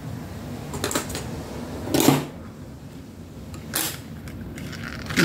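Paper craft pieces being handled and placed on a work table: four short rustles and light knocks, the loudest about two seconds in.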